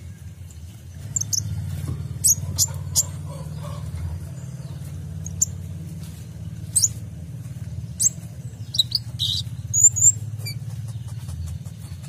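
Male Van Hasselt's sunbird (kolibri ninja) giving short, sharp high-pitched chirps and call notes in scattered bursts, with a quick cluster of notes a little before and around ten seconds in. A steady low hum runs underneath.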